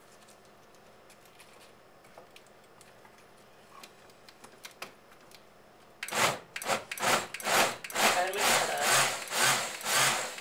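Stainless countertop blender starting about six seconds in and chopping a jar packed tight with leafy greens, its noise swelling and dipping about twice a second as the blades catch the leaves. Before it starts there are only a few faint clicks and rustles of leaves being pushed into the jar.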